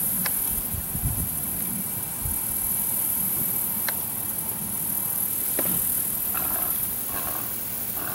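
Steady, very high-pitched insect chorus over a low rumble, with a few sharp clicks.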